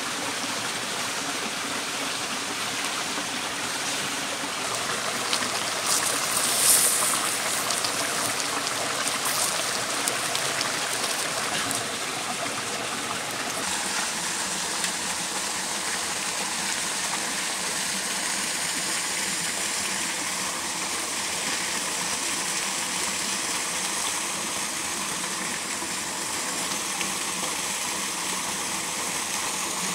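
Steady rushing of a small waterfall and mountain stream, with a few brief, sharper sounds standing out in the first half.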